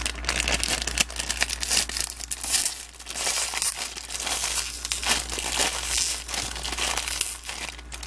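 Thomas & Friends Minis plastic foil blind bag crinkling in a rapid, irregular crackle as hands squeeze and pull at it.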